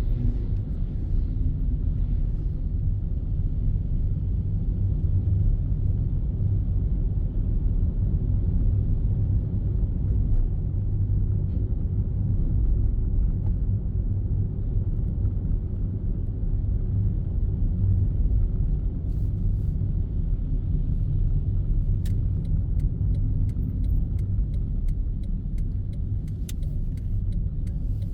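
Car driving, a steady low rumble of engine and road noise as heard from inside the cabin, with a series of faint sharp ticks in the last few seconds.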